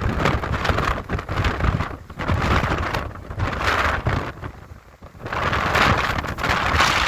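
Strong gusting wind buffeting the microphone with a heavy rumble, coming in surges, with a brief lull about five seconds in.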